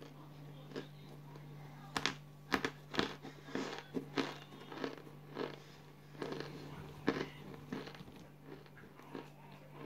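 Close-up biting and chewing of crunchy chunks of set cornstarch (cornflour): a run of sharp, irregular crunches starting about two seconds in and thinning out near the end, over a steady low hum.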